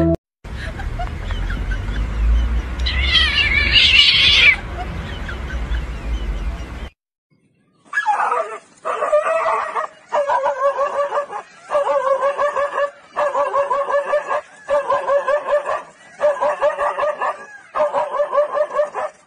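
A dog calling at a leopard in a string of repeated pitched, pulsing bouts about a second each, starting about eight seconds in. Before the calls there is a low rumble with a brief wavering high sound.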